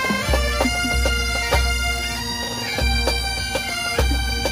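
Bagpipes playing a melody over a steady drone, with drum strikes throughout.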